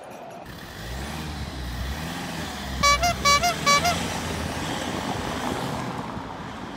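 A Toyota SUV driving past and away over cobblestones with a low engine rumble, giving three short toots of its horn about three seconds in.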